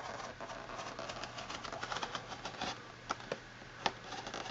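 A small blade slicing along the edge of a plastic blister pack, giving a fast run of faint crackling clicks, with a few sharper snaps of the plastic about three to four seconds in.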